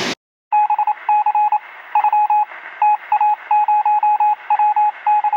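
A run of electronic beeps on a single pitch, keyed on and off in irregular short and longer bursts. They come through a narrow, telephone-like band. The beeping starts after half a second of silence.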